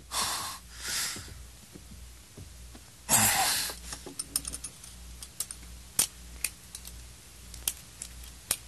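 Metal handcuffs being put on a man's wrists: a run of small, sharp metallic clicks as the cuffs ratchet shut, after a few short rustling sounds near the start and about three seconds in.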